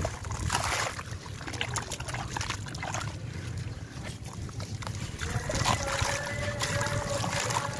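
A wet sand-cement chunk dipped and squeezed by hand in a tub of water: water sloshing, splashing and trickling off it in uneven bursts. A steady hum comes in about five seconds in.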